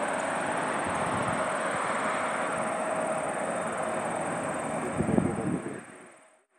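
Boeing 777-300ER's twin GE90 engines at takeoff thrust as the airliner climbs away: steady jet noise with a faint steady tone in it. About five seconds in there is a brief louder low thump, then the sound fades quickly to silence.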